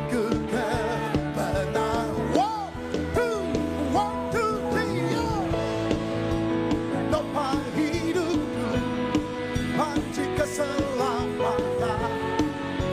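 A worship band plays a pop-rock praise song, with a sliding, wavering melody line over sustained chords and a steady beat.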